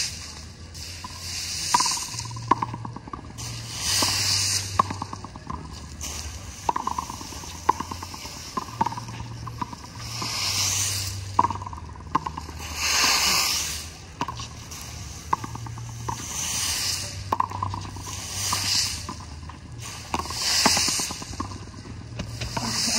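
Frontón handball rally: sharp smacks of the ball struck by bare hands and rebounding off the concrete wall, about one a second, with swishing broom strokes on the concrete swelling every couple of seconds.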